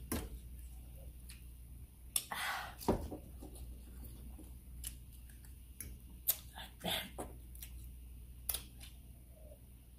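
Eating at the table: scattered clicks and taps of forks on a plate, with a few short chewing and mouth noises.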